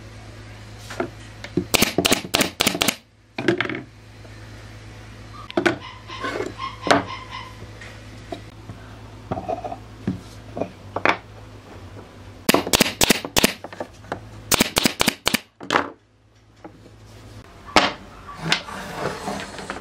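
Bursts of sharp knocks and clatters from hard objects being struck or handled, several in quick succession at a time, over a steady low hum.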